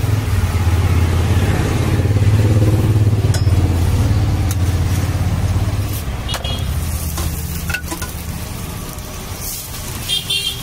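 Stuffed paratha frying on a flat iron tawa: a sizzle over a steady low rumble, with several sharp clicks and scrapes of a metal spatula on the pan. About six seconds in the paratha is flipped, the rumble eases and the sizzle becomes brighter.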